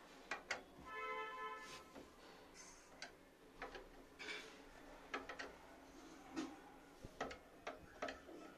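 Scattered small clicks and taps of computer parts being handled and fitted, with a short pitched sound about a second in.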